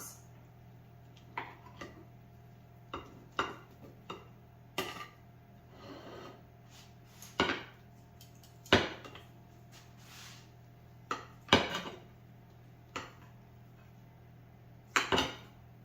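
Knife cutting tender cooked chicken breast into bite-sized pieces on a cutting board: about a dozen short, irregular knocks of the blade against the board.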